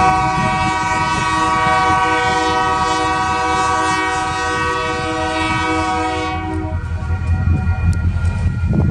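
Union Pacific diesel locomotive's multi-note air horn sounding one long blast for the grade crossing ahead. It cuts off about six and a half seconds in, leaving the low rumble of the locomotive and train rolling toward the crossing.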